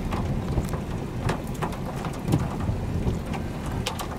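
Rain and hail falling, with irregular sharp ticks of hailstones striking over a steady low rumble.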